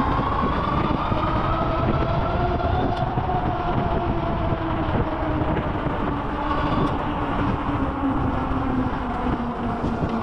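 A vehicle running steadily with a heavy rumble and a whine whose pitch drifts slowly up and then back down.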